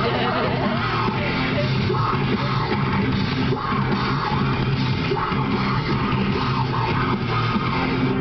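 Loud rock music with guitar and vocals, heavy-metal style, playing steadily on a car stereo and heard inside the cabin.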